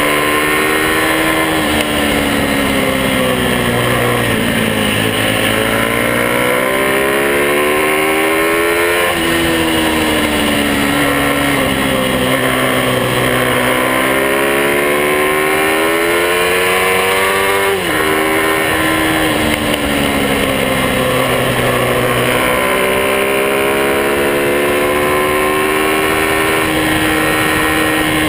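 Motorcycle engine running under way, its pitch climbing slowly and then dropping sharply twice, as at gear changes, with a click at the second drop.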